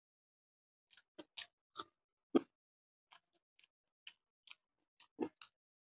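Close-miked eating sounds of a person chewing a mouthful of rice and curry: short wet smacks and mouth clicks at irregular intervals, the loudest about two seconds in and again near the end.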